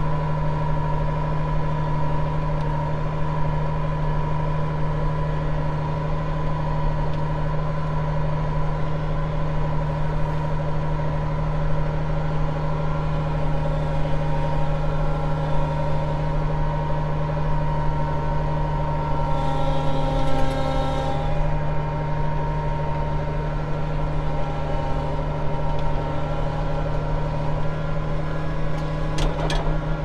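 Case IH 8940 tractor's diesel engine running steadily under load, heard from inside the cab as it pulls a loaded grain cart. A brief higher whine joins about two-thirds of the way through, and there are a few clicks near the end.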